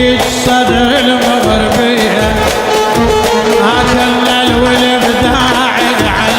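Middle Eastern folk-style song music: held and ornamented melodic lines over a steady drum beat.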